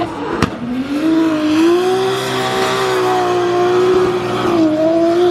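Drift car's engine held at high revs on track: its pitch climbs about half a second in, then holds nearly steady with small dips as the throttle is worked.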